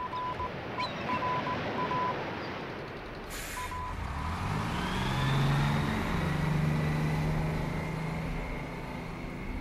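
Morse code beeps at one steady pitch, keyed in dots and dashes for about the first two seconds and briefly again near four seconds, over a steady rushing noise. This is followed by a deep horn blast, like a ship's horn, that starts about four seconds in and is held for several seconds.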